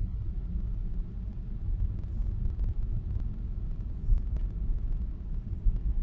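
Steady low road and engine rumble of a car driving on a snow-packed road, heard from inside the cabin, with a few faint ticks.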